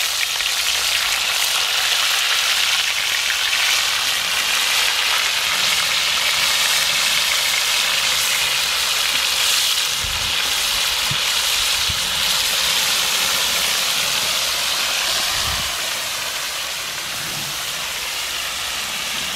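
Pieces of marinated wild pork sizzling in hot oil in a frying pan as they are laid in one by one: a steady hiss that eases slightly near the end. A couple of dull knocks come through it.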